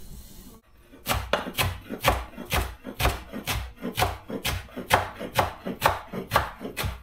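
Kitchen knife chopping fresh dill on a wooden cutting board: a run of quick, sharp knocks of the blade on the board, about four a second.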